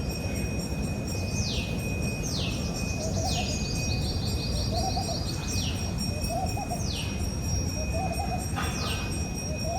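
Birdsong: one bird repeats a quick, high, downward-sliding whistle every second or so, with a short trill near the middle, while lower, softer calls repeat beneath it. A steady low rushing noise runs under the birds.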